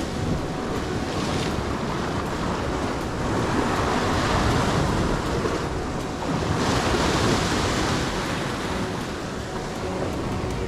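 Sea waves washing against shore rocks, with wind buffeting the microphone. The surf swells louder twice, about a third of the way in and again just past the middle.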